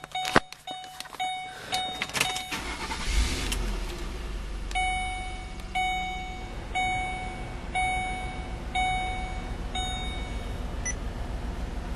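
A car's warning chime dinging, about twice a second at first. About three seconds in, the engine cranks and starts, then idles with a steady low rumble while the chime keeps dinging about once a second.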